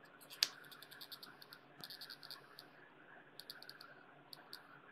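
Faint clusters of quick small clicks and scratches: the tip of a Handskit wireless USB soldering iron ticking against the metal thermocouple pad it is held on while it heats.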